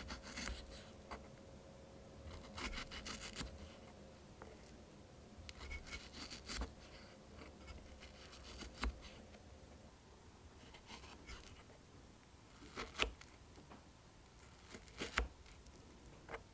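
A tiny knife slicing through a fresh strawberry, soft scrapes and cuts with scattered light taps of the blade on a small wooden cutting board, the sharpest taps coming near the end.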